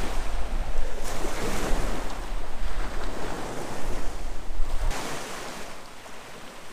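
Sea waves washing against the shore, with wind blowing on the microphone; the low wind rumble drops out about five seconds in, leaving the softer wash of the water.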